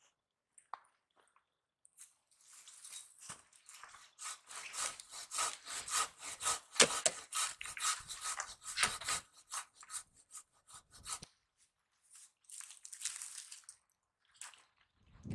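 Hand saw cutting through wood in rapid back-and-forth strokes, stopping about eleven seconds in, followed by a short second run of strokes.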